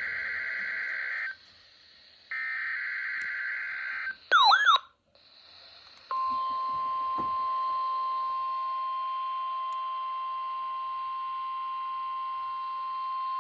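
NOAA Weather Radio EAS alert signalling for a required monthly test. Two bursts of SAME header data come as harsh buzzing, each about a second and a half, with a pause between. A brief, very loud warbling chirp follows about four seconds in, and from about six seconds the steady 1050 Hz weather radio alert tone sounds without a break.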